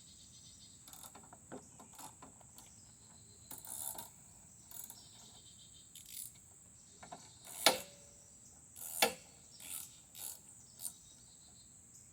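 Clicks, rattles and knocks from hand work on a push mower's handle hardware as a part is unscrewed and handled, with two louder metal clanks in the second half. Crickets chirp steadily behind.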